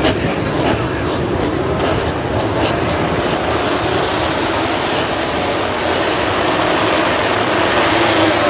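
A full field of MotoGP racing motorcycles' four-stroke engines running together in a dense, steady drone that swells slightly near the end.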